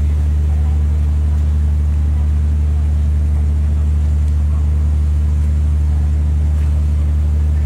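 A loud, steady low hum that does not change, with faint voices underneath.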